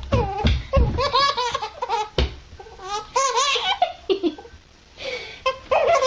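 High-pitched laughter in repeated bursts, a sound-effect clip of someone laughing hard, with a short lull about four seconds in.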